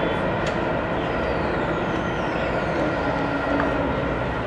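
A passenger train of 25G coaches rolling away along the track, making a steady, even rumble and rail noise with a few faint thin high tones.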